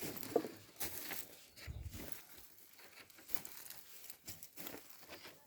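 Faint, irregular rustling with scattered light clicks.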